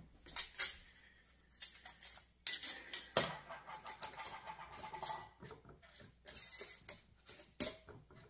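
Clicks, clinks and scraping of glass mason jars and their metal lids being handled on a counter, with a longer rasping scrape about two and a half seconds in.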